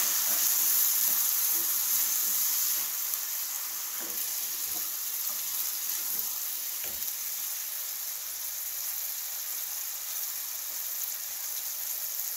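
Ground beef sizzling in a cast-iron skillet as liquid sauce is stirred in with a wooden spatula; the sizzle is louder for the first few seconds, then settles to a steady lower hiss, with a few light taps of the utensils.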